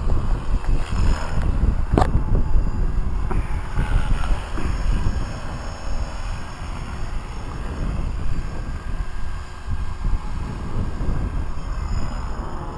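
Wind buffeting the microphone, with the faint whine of a Blade 360 CFX electric RC helicopter's motor and rotor flying at low head speed; a single sharp click about two seconds in.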